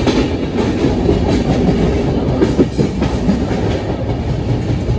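Sleeper-class passenger coach of a moving express train, heard from inside by an open barred window: a steady, loud rumble of wheels on the rails with scattered clicks from the rail joints.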